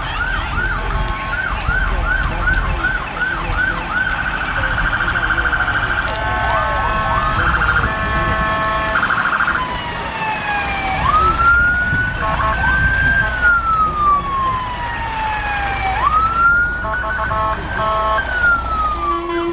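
Emergency vehicle electronic siren cycling through its tones: a fast yelp, then a quicker warble and pulsing steady tones, then a slow wail that rises sharply and falls away, twice.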